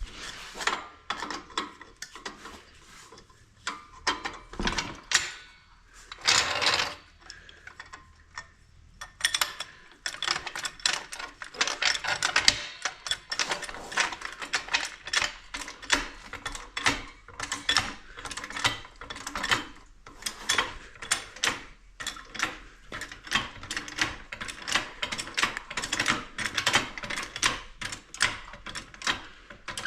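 Hand-tool work on a quad's chain area: a few scattered knocks and a scraping rub, then from about nine seconds in a steady run of light, sharp clicks, about three or four a second.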